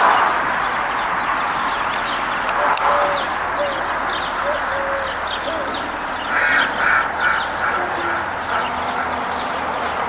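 Outdoor birdsong: small birds chirping throughout over a steady background rush, with a run of about five short nasal honking calls from a larger bird a little after halfway.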